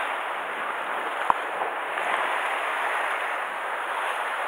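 Steady wash of sea surf on a rocky shore, with a single sharp click about a second in.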